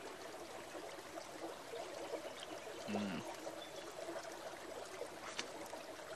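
Steady rush of river water flowing. A short, low, falling hum comes about three seconds in, and a single sharp click about five seconds in, while orange peel is torn by hand.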